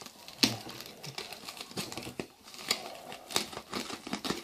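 Packaging crinkling and rustling in the hands, with irregular sharp crackles, as a parcel is carefully unwrapped.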